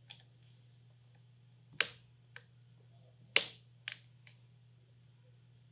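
Screwdriver tightening the screw of a one-piece barrel band clamped on a rifle's magazine tube: a handful of short, sharp metallic clicks, the two loudest about a second and a half apart, over a low steady hum.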